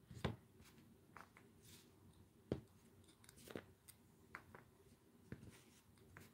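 Faint, scattered clicks and taps of a clear acrylic stamp block and small clear stamps being handled on a craft mat, with two slightly louder taps about two and a half and three and a half seconds in.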